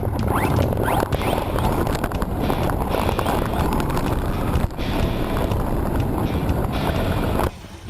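Redcat Volcano EPX Pro electric RC truck driving over rough ground, a dense rushing noise with a faint rising motor whine early on, buffeted by wind on the microphone. The sound cuts off suddenly near the end.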